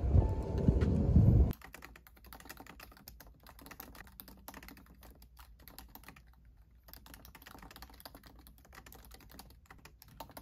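Fingers typing quickly on a MacBook Pro laptop keyboard, a run of soft, rapid key clicks. A louder stretch of other sound cuts off abruptly about a second and a half in, when the typing begins.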